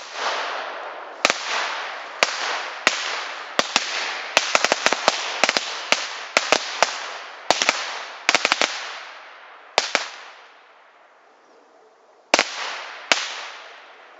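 A string of small Piko Pirát firecrackers (a firecracker carpet) going off: irregular sharp bangs, some in quick clusters, each followed by a long echo, for about ten seconds. Two more bangs come near the end.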